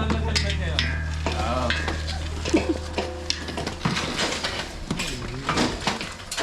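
Light clattering and clinking with faint voices, as background music fades out over the first few seconds.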